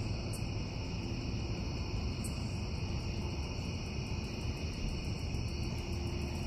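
Steady chorus of night insects calling, several even high-pitched tones, over a low steady rumble, with a few faint ticks.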